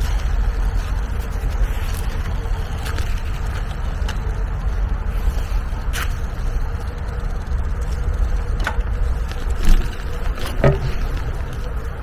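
Outdoor park ambience: a steady low rumble with a few light clicks scattered through it and one louder knock near the end.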